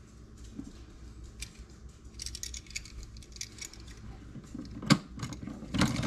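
Small metallic clicks, rattles and scrapes of hands working a light switch and its screws at the wall box, with two sharper knocks about five and six seconds in.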